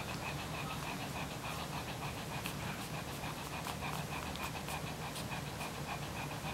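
Newborn Shih Tzu puppies squeaking, quick high squeaks at an even pitch about four a second, over a dog's steady panting.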